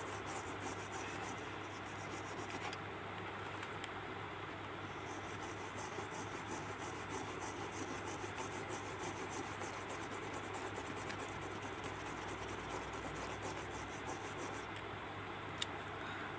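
Toothbrush bristles scrubbing over a TV panel's circuit board: a steady, rough brushing.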